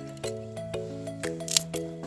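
Background music: sustained chords changing on a steady beat about twice a second. There is a sharp click about one and a half seconds in.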